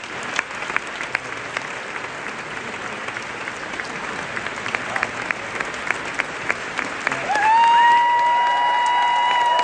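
Opera house audience applauding a curtain call, many hands clapping. Near the end a few long, held high-pitched calls rise above the clapping and the level goes up.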